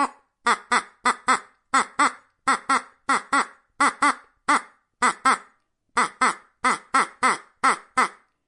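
Duck quacking: a long series of short, falling calls, about three a second and often in pairs.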